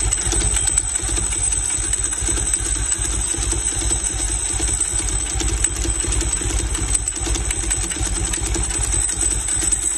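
Norton Commando 850's air-cooled parallel-twin engine idling steadily with an even, fast low pulse.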